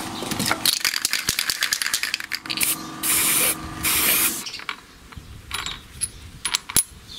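Aerosol spray-paint can: a run of rattling clicks, then three short hisses of spray between about two and a half and four and a half seconds in. A few faint clicks follow near the end.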